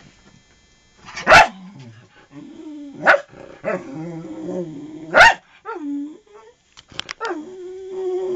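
Small white terrier giving three sharp barks about two seconds apart, with drawn-out whining between them and again near the end.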